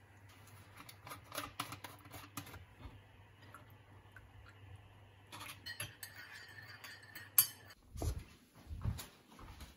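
A metal teaspoon clinks against a china mug as a tea bag is stirred and pressed. Milk is then poured in from a plastic bottle, and a sharp knock comes about seven seconds in. A few low thumps follow near the end, over a low steady hum that stops about eight seconds in.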